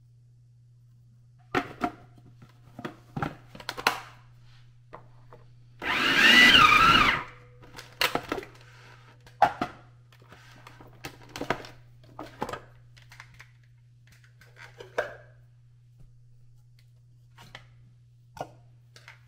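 An electric kitchen mixing appliance runs in one short, loud pulse of about a second, mixing sourdough starter into pie crust dough. Scattered knocks and clatters of bowls and utensils being handled come before and after it.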